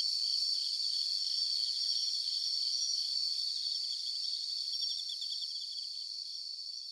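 A night chorus of crickets: a steady high trill with rows of rapid pulsing chirps over it, slowly fading out toward the end.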